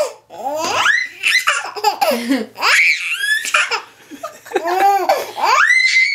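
Baby laughing hard in several bursts of high-pitched, squealing laughter.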